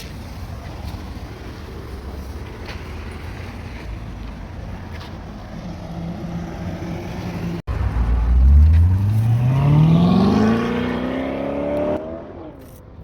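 Steady low rumble, then about eight seconds in a car engine accelerates, its pitch rising steadily for about four seconds before falling away.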